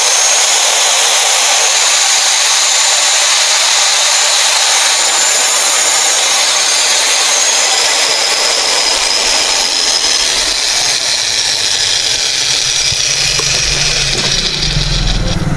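Dongcheng 801 electric angle grinder running at full speed with no disc and no load: a loud, steady motor whine. The new carbon brushes have replaced worn-out ones, and the grinder now runs properly instead of stopping mid-run.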